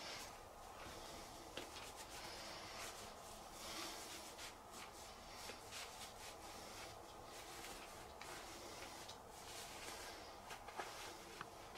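Hands rubbing and stroking the back and shoulder through a shirt: faint, irregular swishes of fabric with a few small clicks.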